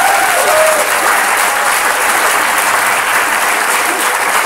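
Audience applauding loudly, a dense, even patter of many hands clapping.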